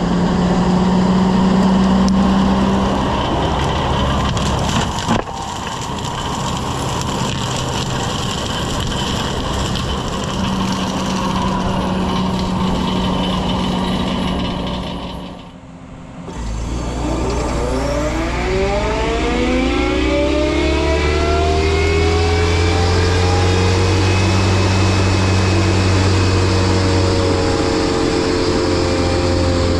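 Heavy equipment running steadily: a Yanmar SV100 excavator with a Fecon mulching head. About halfway through, the sound breaks off briefly, then comes back with a whine that rises in pitch and levels off as the machine winds up to speed, and it runs on steadily.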